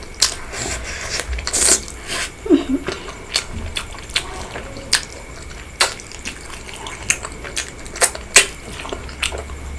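Close-miked wet chewing and mouth sounds of someone eating pork curry with rice: irregular sharp smacks and clicks, sometimes several a second.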